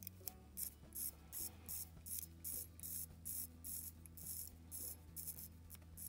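Crown and stem of a Seiko Samurai (SRPB55) dive watch turned by hand, each twist giving a short ratcheting rasp, about three a second, stopping a little before the end. Heard as the freshly regreased crown and new gasket are tried for feel.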